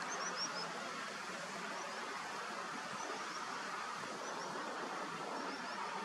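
Small birds calling in quick runs of three to five short, high, falling notes, repeated every second or so, over a steady rush of wind and distant surf.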